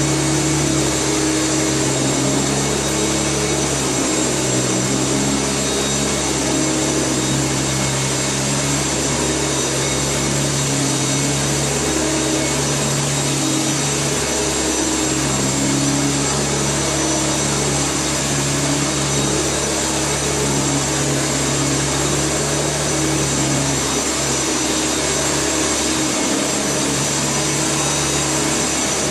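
Hoover Turbomaster Electronic U5080 vacuum cleaner running steadily, its low motor hum wavering in pitch a few times.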